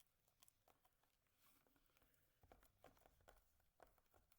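Near silence with faint, scattered clicks and soft taps from slime being mixed in a bowl.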